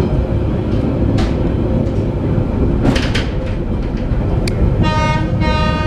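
Former London Underground 1959 tube stock carriage running on rails, heard from inside: a steady rumble with a few sharp knocks. Near the end the train's horn sounds two blasts, a short one and then a longer one.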